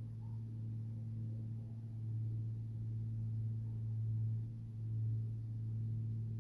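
A steady low hum that slowly swells and eases in level.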